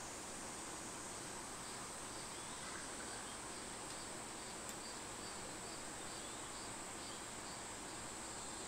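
Faint, steady background hiss with a continuous high-pitched band running through it. There is a faint tick about halfway through.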